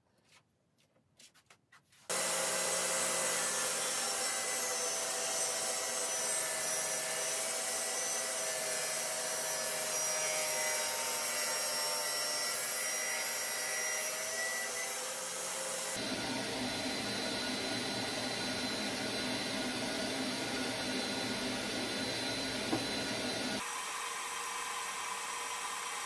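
A few light clicks of wood being handled, then a DeWalt jobsite table saw comes in suddenly about two seconds in and runs steadily while its blade cuts through 2x4 SPF lumber. The sound changes abruptly twice later on.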